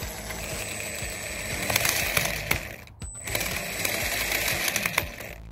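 WLtoys 104001 RC buggy's electric motor driving the drivetrain with a steady whine and a rough crunching, clicking rattle from the gears. This is the sign of a broken bevel gear in the front differential. The sound breaks off briefly about three seconds in.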